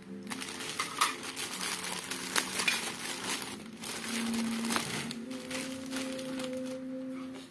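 Clear plastic packaging bags crinkling and rustling in short sharp crackles as figure parts are pulled out of them by hand, with a steady low hum held underneath for the last few seconds.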